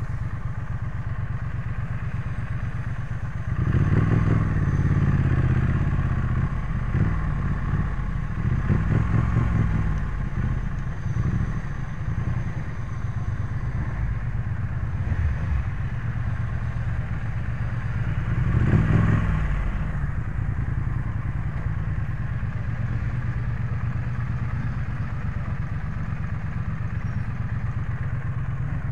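Triumph Street Twin's 900 cc parallel-twin engine running under the rider, first at a steady low throb. It revs up as the bike pulls away about four seconds in, rises and dips through gear changes for several seconds, swells again around eighteen seconds, and then settles into a steady low throb.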